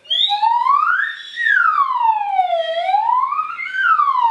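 Slide whistle blown in one long tone whose pitch glides smoothly up, down, up again and back down.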